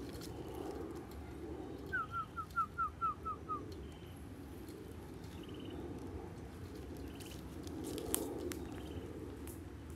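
Bird calls: a quick run of about eight short, downward-sliding whistled notes about two seconds in, over a steady low background.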